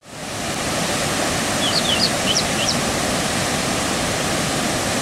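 Steady rush of floodwater pouring through the opened spillway gates of a dam, fading in at the start. A quick run of about six high bird chirps comes between about one and a half and three seconds in.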